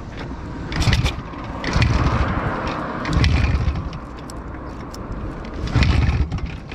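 An IZh Planeta 4 motorcycle's single-cylinder two-stroke engine being kicked over about four times with the kickstarter, each kick a short mechanical surge and clatter, never catching and running. The engine has stalled because its battery is flat.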